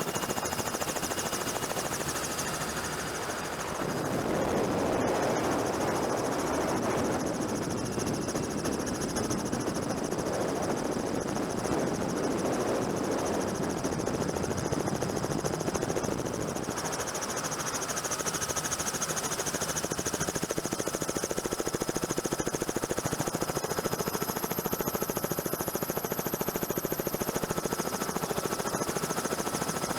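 Helicopter running steadily, the rotor and engine noise of the filming helicopter filling the sound. It grows fuller about four seconds in and eases again around the middle.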